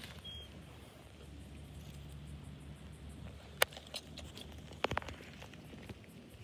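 A few sharp, light clicks, the kelpie's metal collar ring and tags knocking together as it moves its head, over a low steady background rumble. One click comes in the middle, then a quick cluster of two or three a second later.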